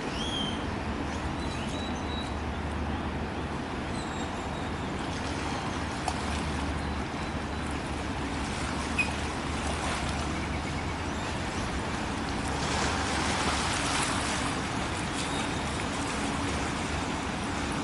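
Steady distant road traffic rumble, swelling about thirteen seconds in as a vehicle passes, with a few faint high bird chirps in the first few seconds.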